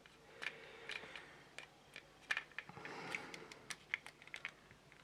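Scattered small clicks and taps of plastic model-kit parts and tools being handled at a workbench.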